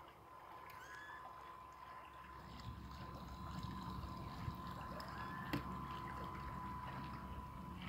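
Remote-control carp bait boat running on its electric motors across calm water: a steady thin hum over a low wash of water from its wake, growing a little louder as the boat comes closer. A single sharp click about five and a half seconds in.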